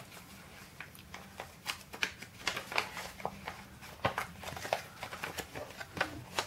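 Folded paper instruction leaflet being handled and unfolded, crackling and rustling in a run of quick, irregular crinkles.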